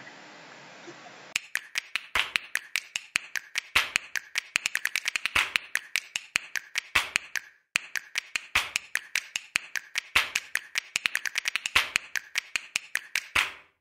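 Hammer driving nails into a wooden framing stud: a long run of quick, sharp hammer blows of varying force, with a short break a little past halfway.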